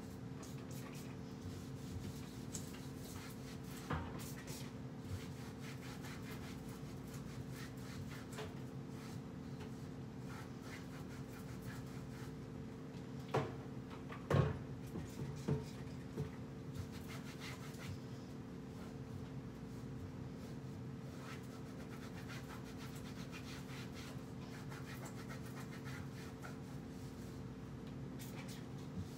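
Cloth wiping kitchen cabinet doors and handles: soft rubbing with scattered light knocks, and a cluster of louder knocks about halfway through. A steady low hum runs underneath.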